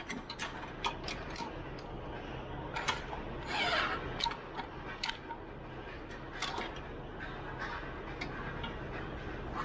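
Scattered light clicks and taps of a hand tool and metal A/C fittings being handled at a car's condenser, with a short rushing scrape a little past three and a half seconds in.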